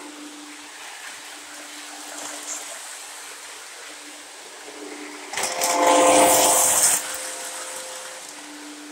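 O gauge model train running on the layout with a steady hum. About five and a half seconds in, a loud blast of several steady tones sounding together lasts about a second and a half.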